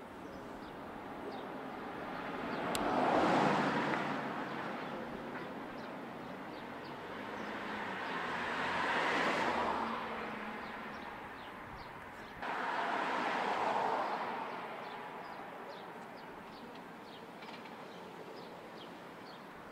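Road traffic passing: three vehicles go by one after another, each swelling and fading over a few seconds, with small birds chirping throughout.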